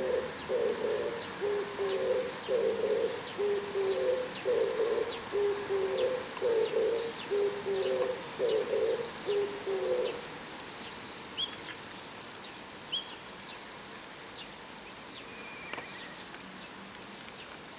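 Oriental turtle dove singing: its low, hoarse cooing phrase repeated over and over, stopping about ten seconds in. A few short, high chirps follow.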